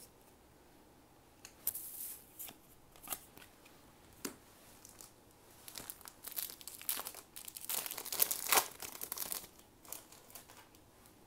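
Trading cards being handled by hand, with a few light clicks as cards are set down, then a run of crinkly rustling from about six to ten seconds in.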